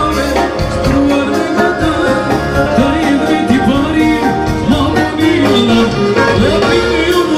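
Albanian folk dance music for a valle circle dance, with a steady beat under an ornamented, gliding melody and a singer.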